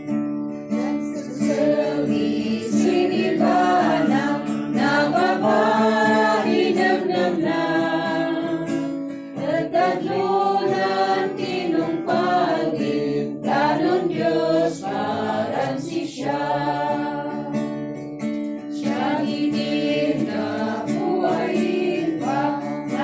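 A group of people singing a song together, accompanied by a strummed acoustic guitar.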